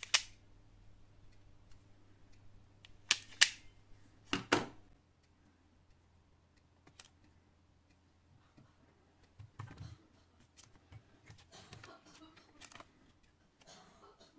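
Hand wire stripper clamping and snapping on thin red and black wires, three sharp clicks in the first few seconds, followed by faint rustling as the wires are handled.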